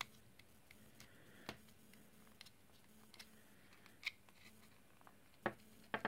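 A few light, sharp plastic clicks and taps, a second or two apart, from the opened Amiga mouse case and its cable being handled during reassembly. The clicks stand over near silence, and the last is the loudest.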